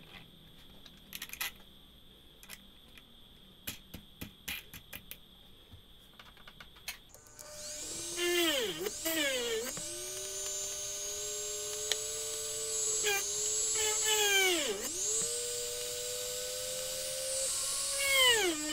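Scattered clicks and taps as the wheel is fitted into the jig, then a mini drill press motor starts about seven seconds in with a steady whine. Its pitch sags about four times and climbs back as the bit bores spoke holes into the wooden wheel rim.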